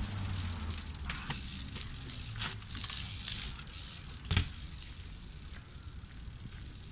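BMX bike being ridden on pavement, with tyre noise and scattered clicks and rattles from the bike. A single sharp knock comes a little over four seconds in.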